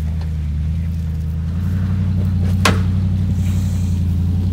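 Nissan Y62 Patrol's 5.6-litre V8 running at low revs as it crawls up over rocks, the engine building a little under load partway through. A single sharp knock sounds about two and a half seconds in.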